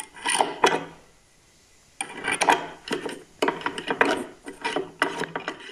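Scraping and rubbing as the grinding-stone roller assembly of a Meenakshi and Meenakshi MM10 table-top wet grinder is seated and twisted to lock in its stainless steel drum. A short scrape, a pause of about a second, then a run of uneven scrapes.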